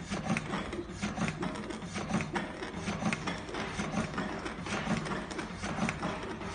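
Automatic sheet-cutting machine running, with a steady, rhythmic mechanical clatter as it feeds and cuts soft sheet material.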